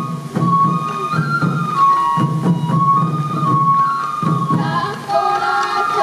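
Traditional sansa odori festival music: a Japanese bamboo flute playing a stepping melody over the steady beating of waist-slung sansa drums. A second, fuller melodic layer joins about four and a half seconds in.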